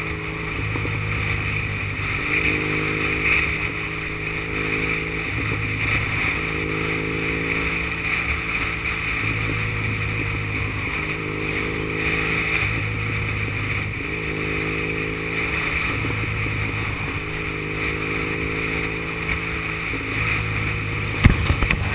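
Triumph Bonneville's parallel-twin engine running steadily at cruising speed under a constant hiss of wind and tyre noise on a wet road. A few sharp knocks sound near the end.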